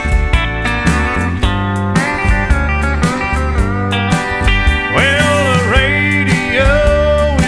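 Country music with steel guitar over a steady drum beat, the guitar sliding up and down in pitch a few times in the second half.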